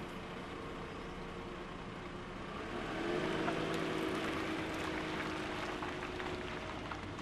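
Car engine running, rising in pitch about three seconds in as it pulls away, then holding steady, over a steady hiss.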